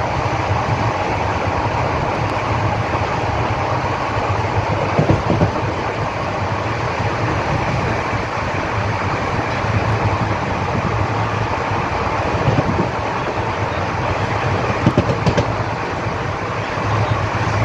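Passenger train coach running at speed, heard from its open doorway: a steady rumble of wheels on rails. A few louder knocks stand out, about five seconds in, at about twelve seconds and near fifteen seconds.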